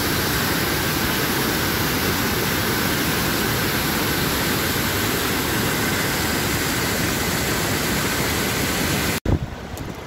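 Mountain river rushing over boulders in small waterfalls: a loud, steady rush of water that cuts off abruptly about nine seconds in, leaving a much quieter background.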